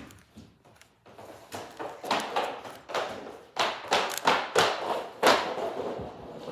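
Rubik's cube being turned quickly by hand: a run of irregular plastic clicks and clacks, about two or three a second.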